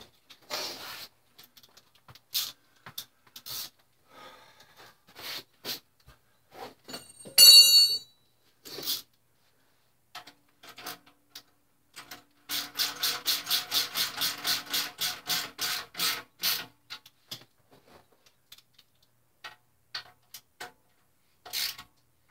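A 12 mm wrench working the bolts of a motorcycle's shorty exhaust: scattered metal clicks and knocks, a sharp ringing clink about seven and a half seconds in, and a run of even rapid clicks, about five a second, for some four seconds in the middle.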